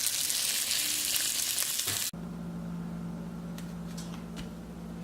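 Steady hiss of blizzard wind and blowing snow, cutting off abruptly about two seconds in. After that comes a quieter room with a steady low hum and a few faint clicks.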